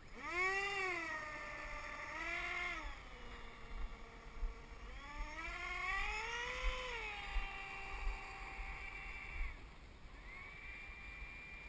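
Electric ducted-fan motor of a radio-controlled T-45 model jet whining as the throttle is blipped up and down twice, then run up to a higher, rising whine and eased back. Near the end it settles to a steady, fainter whine.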